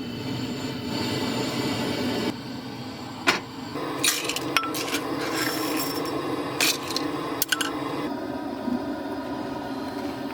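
Kitchenware clinking and scraping, a handful of sharp clicks scattered through, over a steady rushing background.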